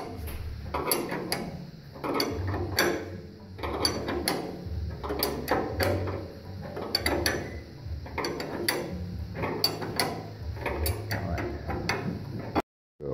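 Long-handled ratchet wrench clicking in repeated strokes as it turns the nut on a threaded-rod bushing puller, with metal clinks from the puller parts.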